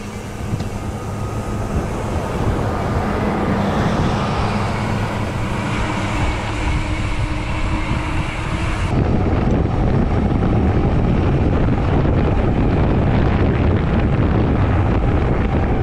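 Wind rumbling on an action camera's microphone while riding a bicycle on the road, mixed with road and traffic noise. About nine seconds in it abruptly turns louder and duller.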